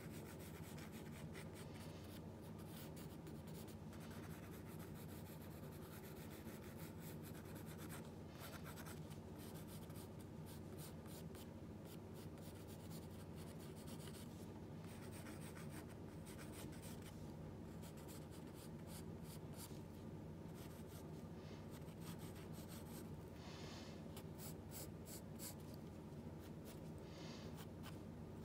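Pencil sketching on paper: faint scratching strokes that come and go as the line is drawn, over a steady low hum.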